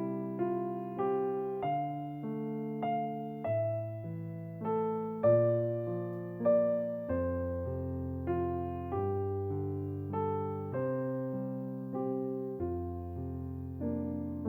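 Background music: a slow, gentle piano piece, notes struck about twice a second over a held bass line.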